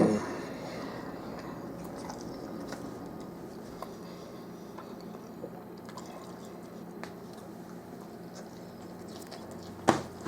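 A person chewing a large mouthful of burger, with a sharp tap near the end.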